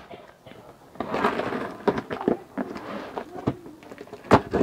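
Cardboard box being handled and its packing tape cut open with a small blade: rustling and scraping of cardboard and tape, with several sharp clicks and one louder knock near the end.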